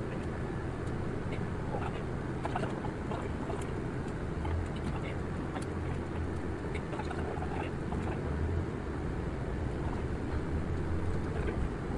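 Route bus running, heard from the driver's seat inside the cabin: a steady low engine drone with scattered small clicks and knocks.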